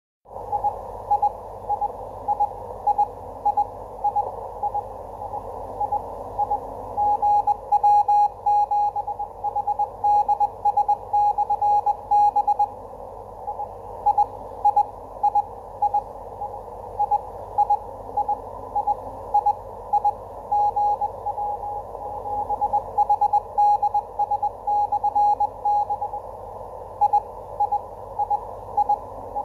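Ham radio beacon received in CW mode on a Kenwood TS-2000 transceiver: a single steady-pitched tone keyed on and off as Morse code, over a continuous hiss of band noise.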